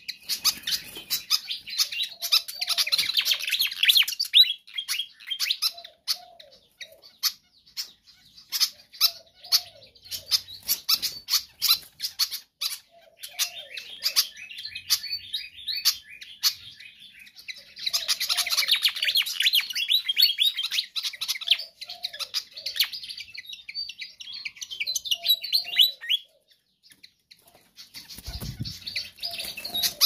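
Malaysian pied fantail singing in long bursts of rapidly repeated high notes, with frequent sharp clicks between phrases and a low thump near the end.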